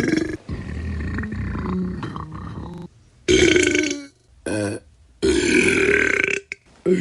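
A run of separate human burps one after another with short gaps: a long, low, rough one first, then a loud one, a short one, and another long one near the end.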